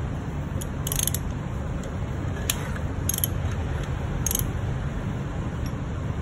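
Short metallic clicks from a hand tool turning the timing gears of an Aprilia RSV4 V4 engine on an engine stand while the engine timing is being set. The clicks come in four brief bursts over a steady low background noise.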